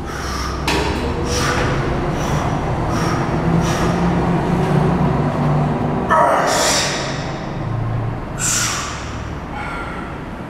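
A powerlifter's sharp, forceful breaths, a quick run of them about one every second at first, as he braces under a 310 kg squat bar, with a louder, longer burst about six seconds in and another two seconds later. A steady low hum runs underneath.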